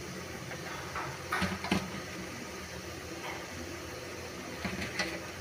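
A few soft knocks and scrapes as raw muthiya dumplings are set by hand into an aluminium steamer pot, over a steady low hum.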